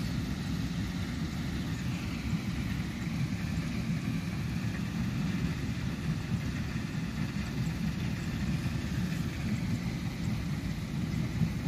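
Portable butane gas stove burning steadily under a pot of boiling stew: an even, low rumble of the burner flame with the pot simmering.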